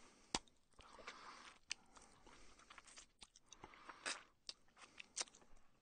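A person eating: chewing and slurping, with irregular sharp mouth clicks, the loudest about a third of a second in.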